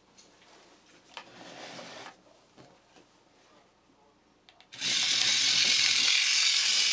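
A 1:48 TT gearmotor driving a 3D-printed plastic tank-tread unit, switching on abruptly about five seconds in and running steadily with the whir of its gears and clatter of the track links. Before that, faint clicks and rustling as the test leads are handled.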